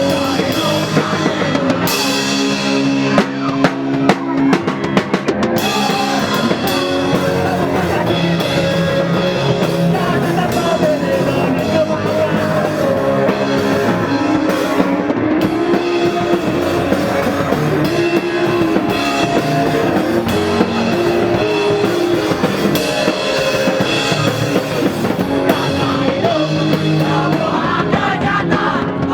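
Rock music with a full drum kit and guitar, and singing at times.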